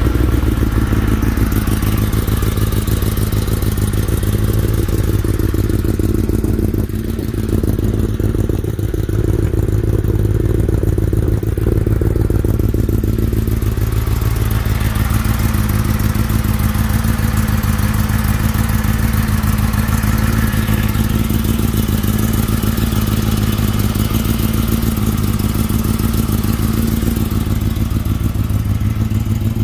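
A 2016 Kawasaki ZX-10R's inline-four engine idling steadily through an Akrapovič titanium full exhaust, just after start-up.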